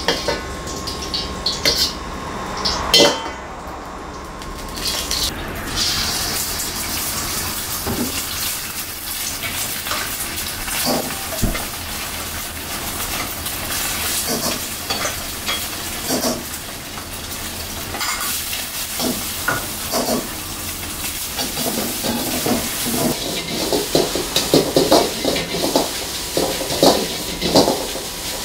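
A metal ladle clanking and scraping in a wok during stir-frying, with oil sizzling from about six seconds in. The clanks come fast and close together near the end.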